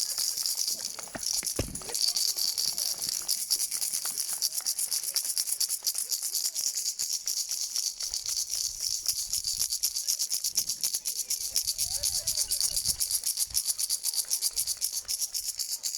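A hand rattle shaken rapidly and without pause, a dense high-pitched clatter, with a low thump about two seconds in.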